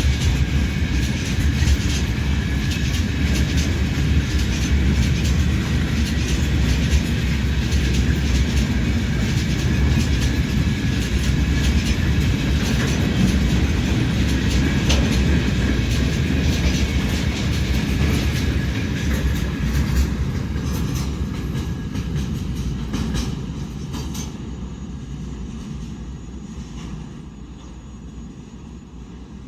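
Freight train wagons rolling past, with a steady rumble and the wheels clicking over the rail joints. The sound fades away over the last several seconds as the end of the train moves off.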